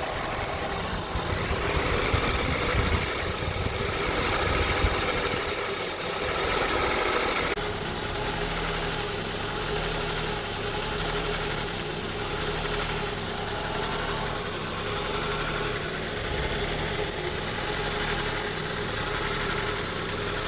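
2002 Honda CR-V's 2.4 L four-cylinder engine idling roughly, its speed hunting up and down so the sound swells and eases instead of holding steady. It is an unresolved rough-idle fault.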